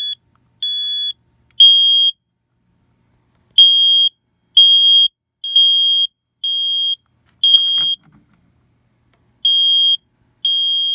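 A Firex FADC and a First Alert 3120B smoke alarm sounding together in the three-beep temporal fire pattern: loud, high-pitched beeps about half a second long, roughly one a second, in groups of three with pauses. The two units' beeps are slightly different in tone and fall out of step with each other. A brief knock comes a little after the middle.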